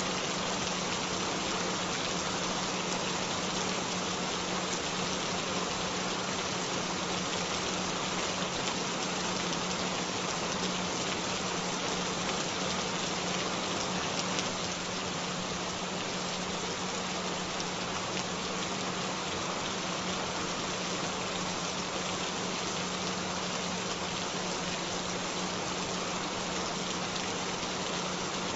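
Steady rain falling without a break, with a constant low tone held underneath it: a frequency tone laid under the rain for headphone listening.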